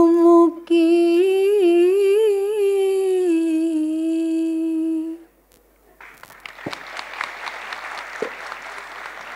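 An elderly woman's unaccompanied voice sings a long held note into a microphone, slowly wavering in pitch before settling. The note stops about five seconds in, and after a short pause the audience applauds.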